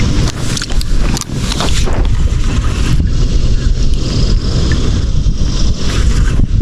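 Wind buffeting the microphone, a steady low rumble, with a few short knocks in the first two seconds.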